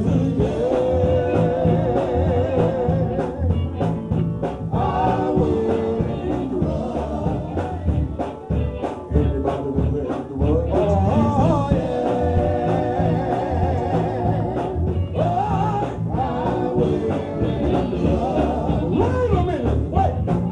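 Live gospel music: an organ or keyboard with bass and drum kit playing an up-tempo beat, with wavering sung or vocalised melody over it.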